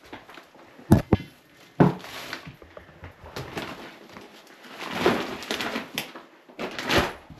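A few sharp knocks about a second in and again near two seconds, then stretches of rustling and shuffling, like things being handled and set down in a small room.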